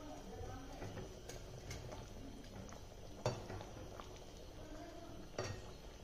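Metal slotted spatula stirring kofta balls in thick gravy in a pan, with a few sharp clicks of the spatula against the pan, the loudest about three seconds in.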